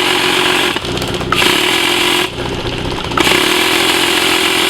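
Loud, continuous automatic airsoft fire with a steady mechanical hum under it, in long bursts that stop abruptly about a second in and again around two and a half seconds in.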